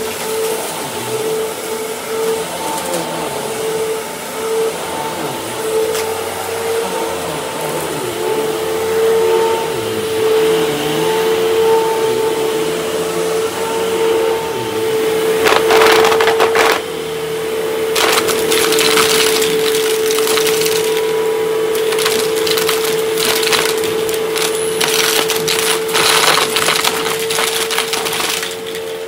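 Upright vacuum cleaner running with a steady motor whine. From about halfway through, confetti rattles and crackles up through the nozzle in spells as it is picked up off the rug.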